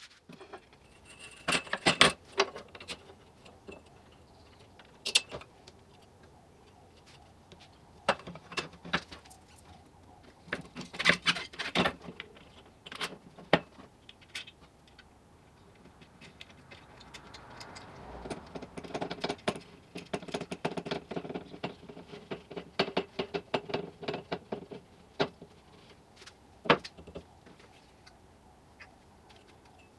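Parts of a wooden frame saw being handled and fitted together on a workbench: the steel blade, wooden arms and metal tension rod clink and knock against each other and the bench. There are scattered single clicks and knocks, with quick runs of small clicks, busiest past the middle.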